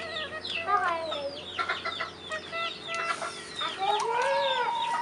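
Birds chirping: many quick, high chirps falling in pitch, with a long wavering call starting near the end.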